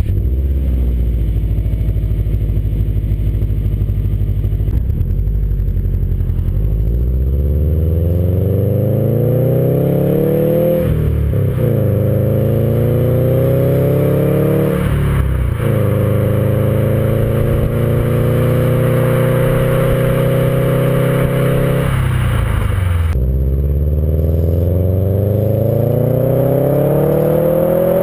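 Exhaust note of a 2011 Subaru WRX's turbocharged flat-four through a Perrin cat-back exhaust with the stock downpipe, heard at the tailpipes while driving. The revs climb, drop with an upshift about a third of the way in and again about halfway, hold steady at a cruise, then fall and climb again near the end.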